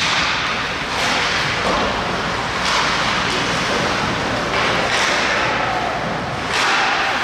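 Ice hockey play on a rink: skate blades scraping and hissing on the ice four times, each scrape starting sharply, with faint knocks of sticks and puck.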